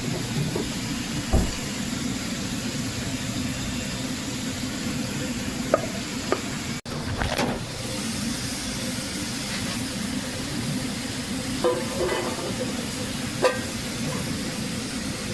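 Food sizzling as it fries in a pan or on a griddle, steady throughout, with a few sharp clicks of a utensil against the cooking surface. The sound drops out for an instant about seven seconds in.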